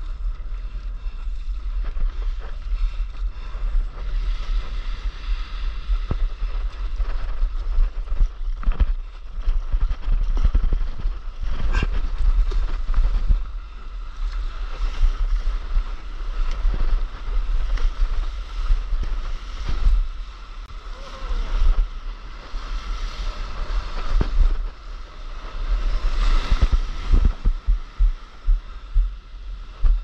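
Wind buffeting an action camera's microphone with a steady low rumble, over water rushing and splashing around a surfboard moving through small waves, swelling and dipping throughout.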